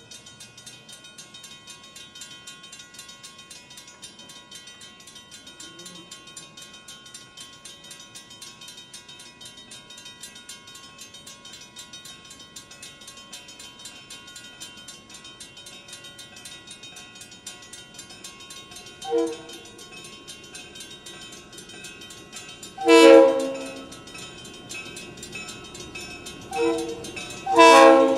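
Grade-crossing bell ringing rapidly and steadily as the crossing gates close for an approaching train. In the last nine seconds the horn of CF7 diesel locomotive 2600 sounds four blasts for the crossing, short, long, short, long, drawing steadily louder as it nears.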